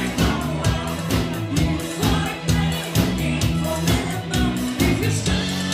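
Pop-rock song with singing over a steady drum beat and bass line.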